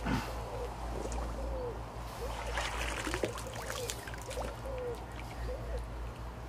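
Water trickling and splashing in a short crackly cluster about two and a half to three and a half seconds in, over a low steady rumble. A bird's short calls repeat throughout.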